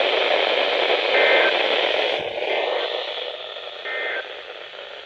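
Radio static from a weather radio receiver: a steady hiss with no voice, with two brief faint tone blips, about a second in and again near four seconds in. The hiss fades down near the end.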